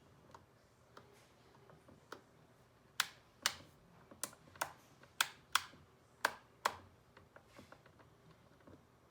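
A series of sharp, irregular clicks, the loudest about nine of them coming close together between three and seven seconds in, with fainter ticks before and after.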